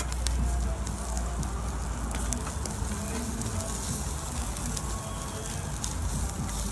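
Skewered lamb rack chops and chunks of meat sizzling over glowing charcoal, with scattered crackles and pops.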